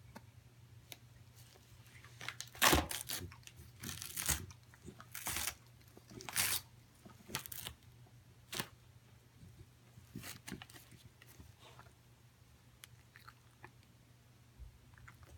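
Pembroke Welsh Corgi tearing and chewing at gift-wrap paper on a present, a run of sharp paper rips and crackles from about two to nine seconds in, then a few softer ones.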